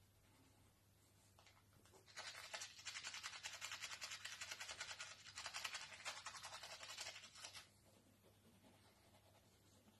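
A toothbrush scrubbing teeth in rapid strokes, starting about two seconds in and stopping near the end, with a brief break midway.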